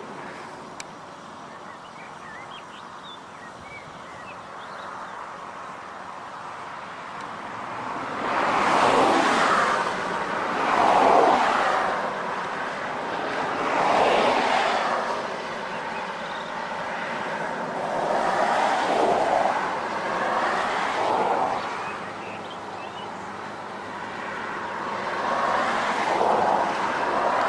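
Road traffic: vehicles pass one after another, each a swell of tyre and engine noise that rises and fades over a couple of seconds. The passes begin about eight seconds in, after a quieter stretch.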